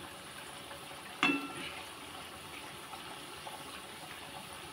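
Tomato chakli deep-frying in hot oil in a metal kadai, a steady sizzle. About a second in, a single metal clink of a spoon against the pan rings briefly.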